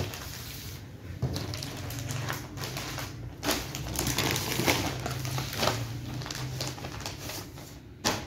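Clear plastic packaging crinkling and rustling in irregular bursts as wrapped suit packs and fabric are handled and laid on a table, with a sharp tap near the end, over a low steady hum.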